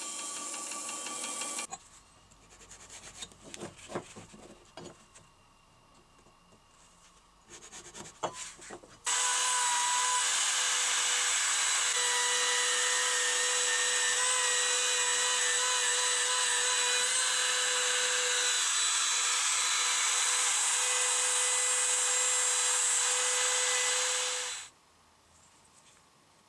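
A band saw finishes a cut, then come a few seconds of quiet clicks and handling of wood. After that a table-mounted wood router runs for about fifteen seconds with a steady high whine while a hardwood block is fed across the bit to cut a groove, then stops.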